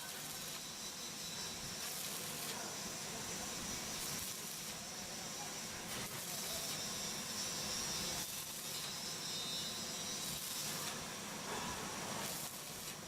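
Electric arc welding: the arc gives a steady sizzling hiss that runs on without a break, with brief flare-ups every second or two.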